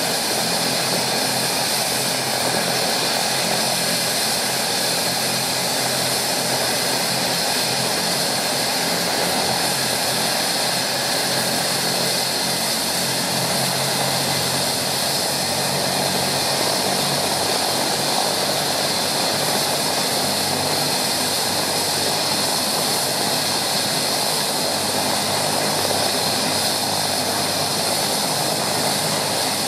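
Bell 427 helicopter's twin turboshaft engines running steadily on the ground after startup, with a steady high whine and no change in level.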